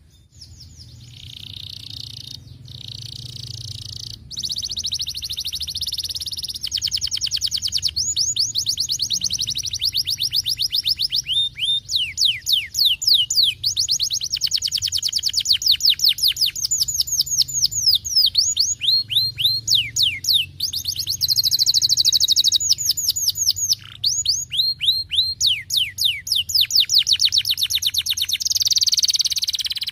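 Domestic canary singing a long, continuous song of fast trills and rolls, with runs of quick notes that sweep down in pitch.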